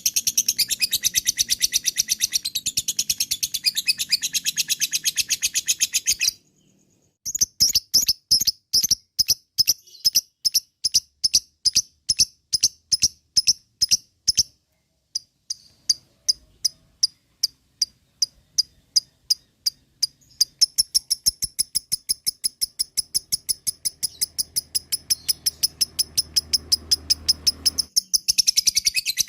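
Lovebird chattering in long, fast rattling trills (ngekek). There is a short break about six seconds in, then slower, evenly spaced notes, a few sparse clicks, and the rapid trill again for the last third.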